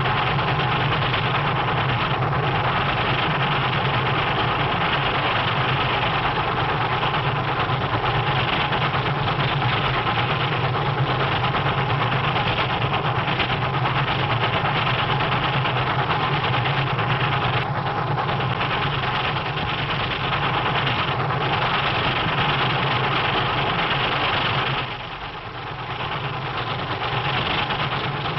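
Steam locomotive running at speed, a steady heavy rumble and rush on an early sound-film track. It drops away briefly near the end, then comes back.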